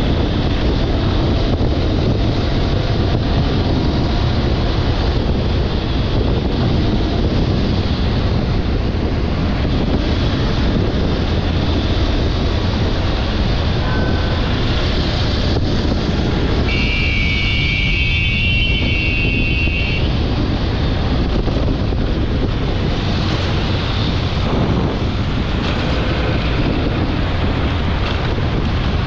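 Honda X-Blade 160's single-cylinder engine running on the move, heavily overlaid by wind noise on the microphone. A horn sounds for about three seconds a little past the middle.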